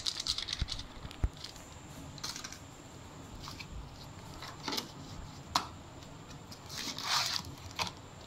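Scattered light clicks and taps from handling things on a kitchen counter, with a plastic spice packet crinkling briefly about seven seconds in.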